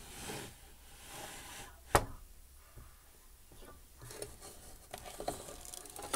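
Toy dollhouse elevator and doll being moved by hand: soft rubbing, one sharp click about two seconds in, then a few faint light knocks.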